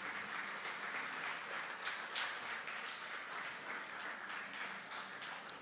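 An audience applauding, tapering off near the end.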